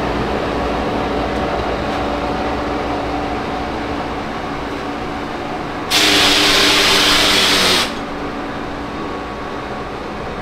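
Steady machine-shop hum with a few held machine tones, broken about halfway through by a loud, high hiss of compressed air that lasts about two seconds and cuts off sharply.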